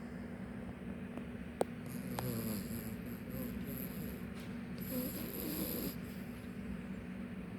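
Chinese Crested dog snoring in its sleep, with louder snores about two seconds and five seconds in, over a steady low hum. A single sharp click comes just before the first snore.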